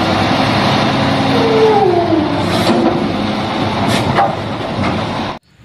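Garbage truck engine running loudly, with a whine that falls in pitch about two seconds in and a couple of brief sharp hisses later on; the sound starts and cuts off abruptly.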